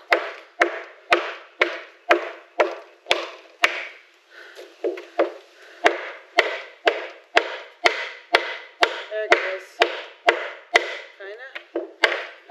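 Claw hammer striking wood again and again, about two blows a second, each a sharp knock with a short ring, with a brief pause about four seconds in.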